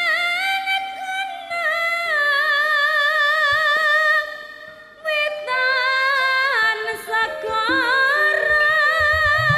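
Javanese pesinden (female singer) singing a slow, ornamented line with wide vibrato into a microphone, in two long phrases with a short break between them. Percussion comes in just before the end.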